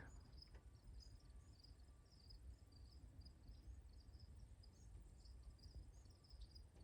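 Faint crickets chirping outdoors: a short high chirp repeating about three times a second over a steady high trill, with a low background rumble.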